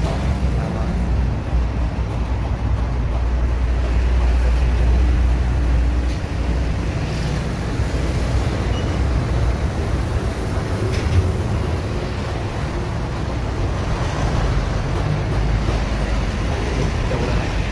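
Steady low rumbling background noise, with no clear single sound standing out.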